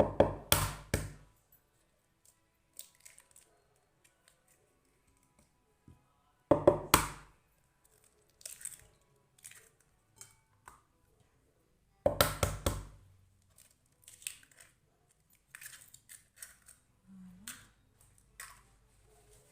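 Three eggs cracked one at a time against a bowl, about six seconds apart: each a quick cluster of sharp taps and cracks, with faint clicks of shell and handling in between.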